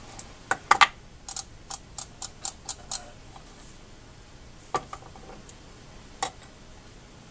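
Sharp metallic clicks from a Penn 155 Beachmaster conventional reel as its star drag is turned and threaded onto the shaft. There are a few clicks at first, then a run of about eight quick ticks, then two more single clicks later.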